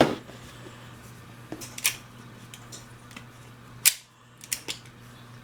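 Sharp metallic clicks and clacks of revolver parts and steel tools being handled, about six in all, the loudest just before four seconds in.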